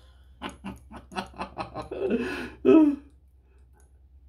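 A man laughing: a quick run of short laughs, about five a second, ending in a louder, longer laugh about three seconds in.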